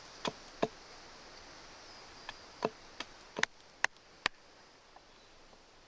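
Hatchet knocking on wood, about eight sharp, irregularly spaced strikes, as a wooden wedge is driven into a log to split it.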